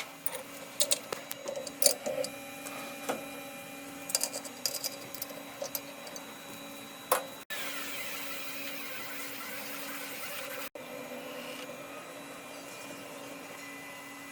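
4-axis CNC grinding machine sharpening an HSS saw blade, running with a steady hum. There are irregular sharp clicks and ticks for the first seven seconds, then a brighter hiss for about three seconds, then steadier running.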